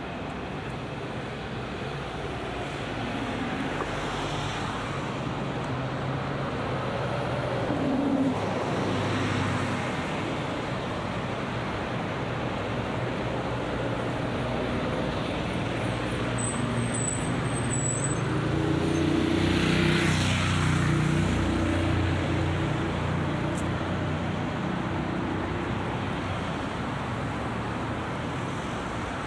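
Steady traffic on a busy multi-lane city road: cars, buses and taxis running past. About two-thirds of the way in, a heavy delivery lorry's diesel engine passes close and is the loudest sound.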